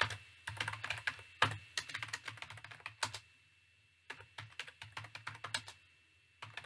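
Typing on a computer keyboard: quick runs of keystrokes with two short pauses, one about three seconds in and one near the end.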